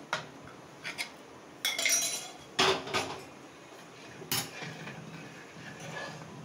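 Metal ladle stirring a milky liquid in a metal pot, clinking and scraping against the pot's sides in scattered knocks, the loudest about two and a half and four and a half seconds in.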